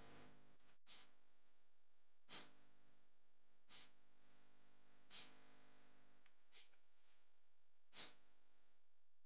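Near silence: faint room tone, with a short, soft hiss about every second and a half.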